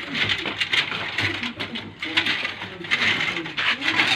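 Rusty wire being pulled out by hand, scraping and clinking against a woven plastic sack and scrap metal. The sound is an uneven rustle with many small clicks.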